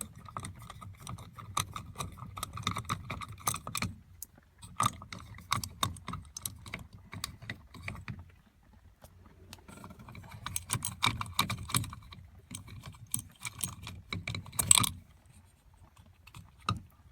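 A screwdriver working screws out of the steering column of a 1974 VW Beetle: stretches of rapid small metal clicks and rattles, with quieter pauses between and a sharper clack near the end.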